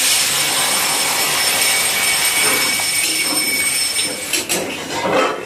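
Water poured into a hot kadai of oily, spice-fried potatoes hits the hot oil with a loud, steady sizzle that dies down after about four seconds. Near the end, a metal spatula scrapes and stirs against the pan a few times.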